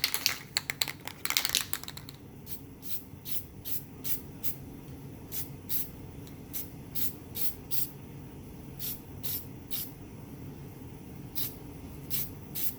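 Aerosol can of flat green camouflage spray paint. For the first second or so the can is shaken and the mixing ball rattles under a hiss. After that comes a long run of short spray puffs, a few a second, as the paint is dabbed on in light bursts.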